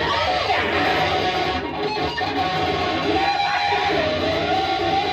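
Electric guitar played as noise music: a dense, steady wash of strummed, distorted sound with a bright tone that wavers and bends up and down in pitch.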